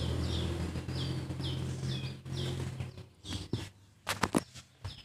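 A bird chirping over and over in short falling notes, over a low steady hum that stops about three seconds in. Near the end come several sharp clicks and knocks of parts being handled.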